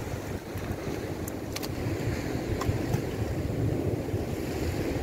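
Wind buffeting the microphone over the wash of surf on the rocks, with a few light clicks in the first three seconds.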